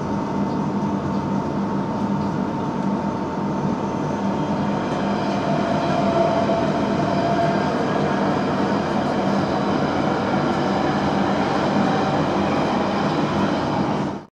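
Steady running noise of a London Underground Central line 1992 tube stock train heard from inside a carriage: a dense rumble with a thin steady whine, and a second whining tone that swells around the middle.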